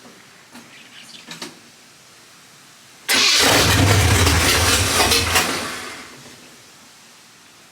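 1979 Chevrolet C10 pickup's engine with open headers firing up abruptly about three seconds in and running loudly for a couple of seconds, then dying away.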